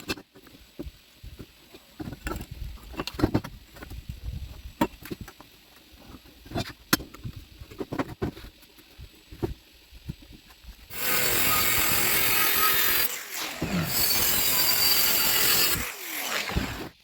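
Scattered knocks and clanks of steel pieces being handled, then an angle grinder cutting steel tube in two loud runs of a few seconds each. The motor's pitch falls as it winds down after each run.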